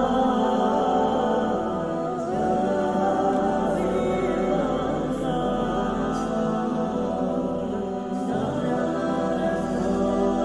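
Background music: a cappella vocal music, several voices singing together at a steady level.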